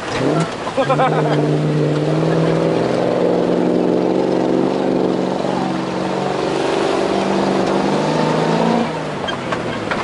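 Engine of an open off-road truck pulling hard as it drives through a shallow river, a steady engine note that eases off about nine seconds in.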